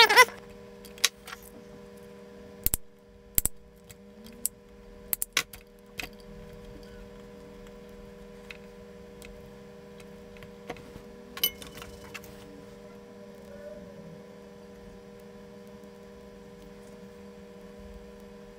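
Hands working wires and small tools (pliers) on a metal equipment lid: a brief clatter at the start, then a scatter of sharp clicks and taps, thinning out after about six seconds, over a steady low hum.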